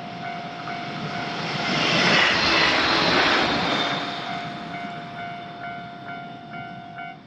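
A Japanese railroad crossing's electronic warning bell rings in a steady repeating clang, about twice a second, while a train passes. The train's rushing noise swells to a peak two to three seconds in and then fades away. The bell cuts off shortly before the end, as the crossing clears.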